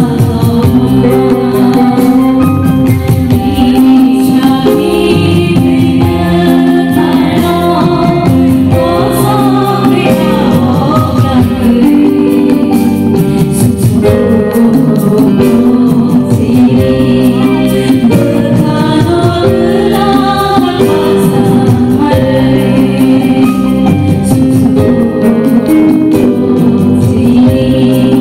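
Two women singing a song together into microphones, with amplified instrumental backing. Their voices hold long notes that waver in pitch.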